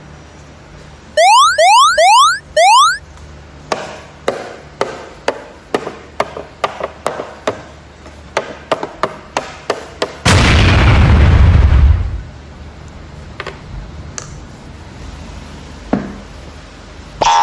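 Four quick rising pitch sweeps near the start, then a run of sharp clicks about two a second. About ten seconds in comes a loud explosion-like burst with a deep rumble lasting about two seconds, and a last rising sweep at the very end. These are edited-in sound effects over toy handling.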